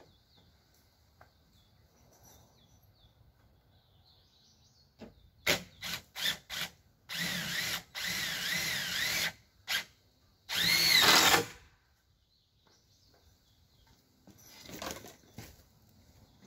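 Cordless drill driving screws through a wooden siding panel: a few short blips of the motor, then a steady run of about two seconds with a wavering whine, and a last, louder run whose pitch rises and then falls.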